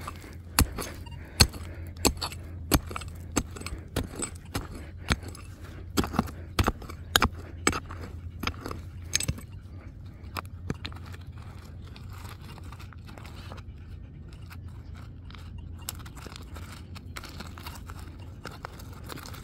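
Digging with a hand tool into stony ground: sharp chops and scrapes at about one or two a second for roughly ten seconds, then only a few scattered scrapes.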